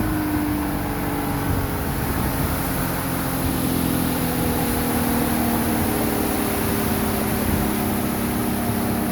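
A boat's engine running steadily while the boat is under way, its pitch easing down slightly over the first few seconds and then holding even.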